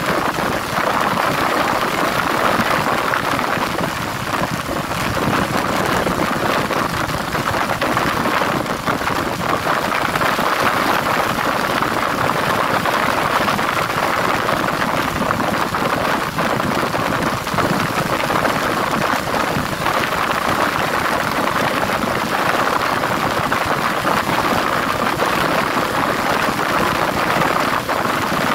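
A motorcycle heard from on board while riding: the engine runs under an even, steady rush of wind and road noise. Nothing changes throughout.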